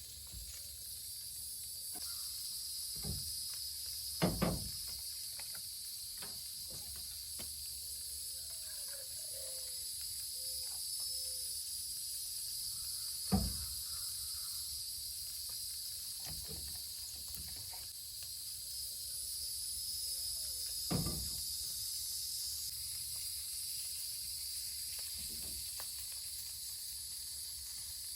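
Tater tots sizzling in a frying pan, a steady hiss with scattered small pops, broken by three louder knocks of a utensil against the pan about 4, 13 and 21 seconds in.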